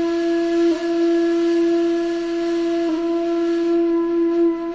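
A single flute-like wind-instrument note held steadily. It breaks off twice for a moment and sounds again at nearly the same pitch.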